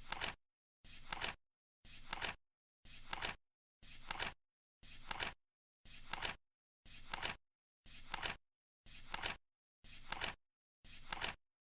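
Flip clock's number flaps flipping over once a second as the seconds count down, each a short swish that ends in a sharp snap.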